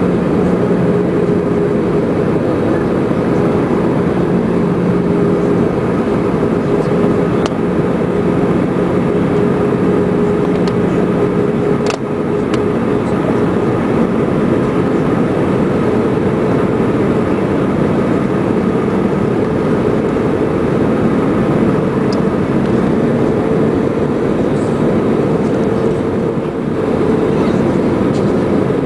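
Airbus A320 in flight on approach, heard from inside the cabin: steady engine and airflow noise with two steady low hum tones and a brief click about twelve seconds in.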